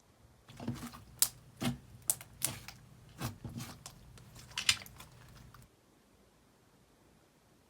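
Thick slime being squished and pressed by hand, making a run of sharp, irregular clicks and pops that stops abruptly after about five seconds.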